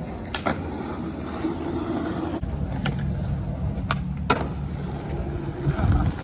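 Skateboard wheels rolling on concrete with a low, steady rumble, broken by a few sharp clacks of the board.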